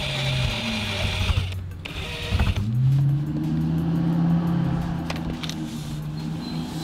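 Cordless DeWalt drill with a 3/8-inch bit boring a hole through the plastic under spoiler and bumper. A high motor whine runs for the first second and a half and stops briefly, then a steady low hum picks up a little and carries on.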